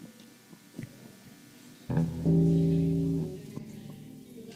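A few soft clicks, then about two seconds in an amplified electric guitar sounds one low note that rings for about a second and a half and dies away. This is a band checking its instruments before starting a song.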